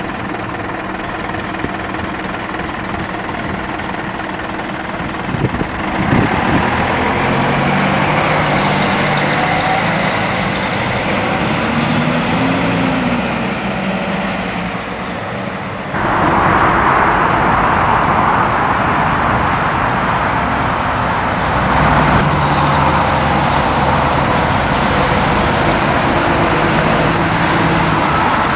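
Heavy diesel bus engines running and pulling away in street traffic, the engine note stepping up and down through the gears. The sound jumps suddenly louder about 6 seconds in and again about 16 seconds in.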